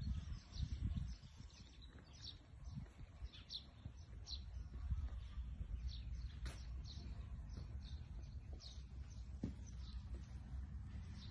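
Small birds chirping in short, repeated calls over a low rumble that is heaviest in the first second or so.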